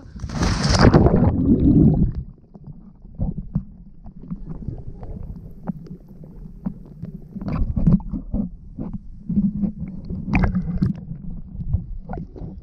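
River water sloshing and gurgling against a phone's microphone held at the surface by a swimmer: a low, uneven rumble broken by small splashes and crackles. A louder rush of water-on-microphone noise fills the first two seconds.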